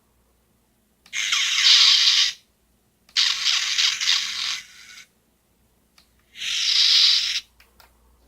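Homemade lightsaber sound module playing its effect sounds in three separate bursts, each a second or so long, hissy and high-pitched with no bass, separated by silence.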